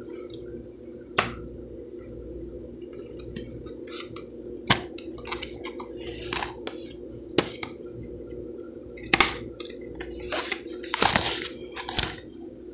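Stiff plastic blister packaging of a carded pocket knife being handled: irregular sharp clicks and short crinkling rustles, a dense cluster of them near the end, over a steady low hum.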